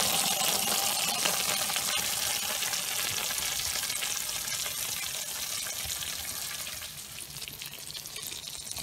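Melted cheese topping of a casserole sizzling in its hot baking dish just out of the oven, a steady hiss full of fine crackles that slowly fades.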